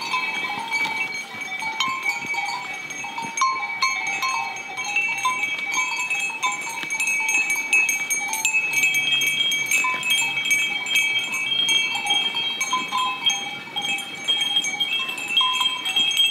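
Bells on a grazing flock of goats and sheep clinking and ringing continuously. Several bells of different pitches overlap, with frequent small clanks as the animals move.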